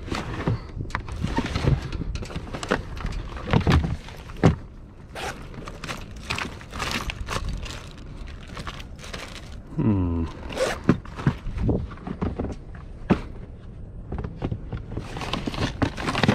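Irregular knocks, clunks and rustling as a hard yellow plastic board and gear are handled and shifted about in a plastic storage crate in a small sailboat's cockpit, with a short sliding sound falling in pitch about ten seconds in.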